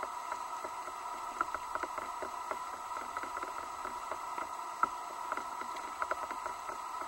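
Underwater ambience picked up through a camera's housing: a steady muffled hum with an irregular crackle of small clicks and ticks, a slightly louder click near the five-second mark.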